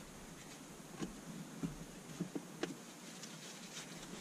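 Faint, scattered light ticks and scrapes at irregular intervals as leftover adhesive is worked off windshield glass by hand.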